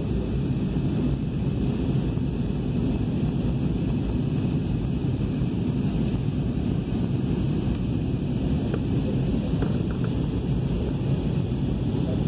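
Jet airliner cabin noise in flight: a steady, deep rush of engines and airflow heard from a window seat, unchanging throughout.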